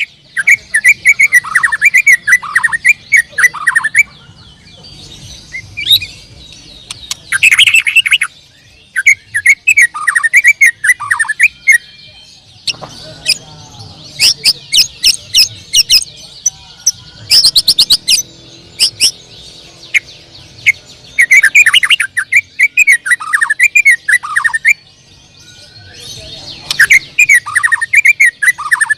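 White-rumped shama (murai batu) singing in bursts of a few seconds with short pauses, mixing falling whistles with sharp clicking and chattering notes.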